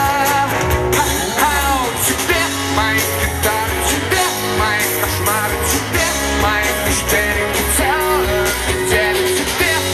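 Live rock band: a man singing lead into a microphone over electric guitar and bass guitar.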